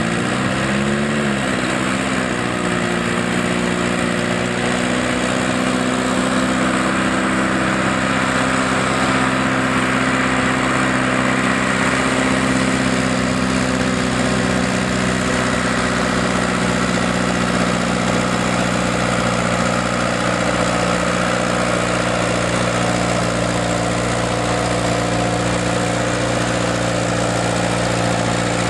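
Antique farm tractor engine idling steadily under a hitched stone-boat sled. It revs up sharply at the very end as the tractor starts the pull.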